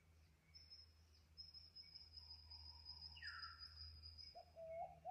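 Faint Australian forest birds and insects calling. A thin, high, steady note is held for about four seconds, a short call sweeps downward about three seconds in, and low wavering cooing notes come near the end.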